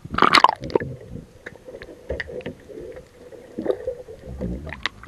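Sea water splashing as a camera plunges under the surface, loudest about a quarter second in, then muffled underwater gurgling and bubbling with scattered small clicks.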